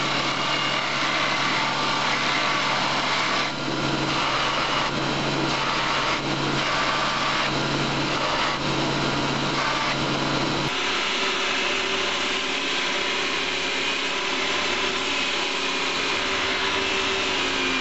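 Electric belt grinder running with a steel knife blade pressed against the abrasive belt, a grinding hiss over a steady motor hum. About eleven seconds in it cuts to a different belt grinder with a lower motor hum, again grinding the blade.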